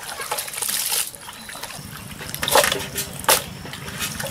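Hands squelching and sloshing through wet chunks of raw goat meat in a steel basin, with two sharper wet slaps about two and a half and three seconds in.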